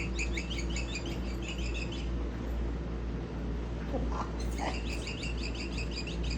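Electronic toy bird chirping in fast, evenly repeated runs of high tweets: one run for about two seconds at the start and another starting about four and a half seconds in.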